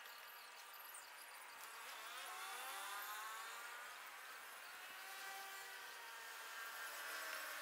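Faint engine hum, its pitch gliding upward about two seconds in and shifting again near the end.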